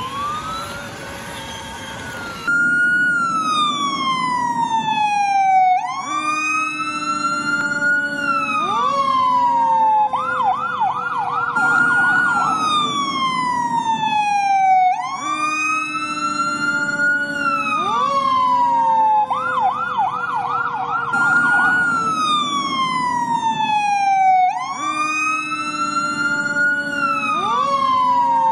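Electronic fire-truck siren from an RC fire engine: a wail that rises quickly and falls slowly, repeating every four to five seconds, twice broken by a short fast warble. It settles into this pattern about two and a half seconds in, after a rising tone over a hiss.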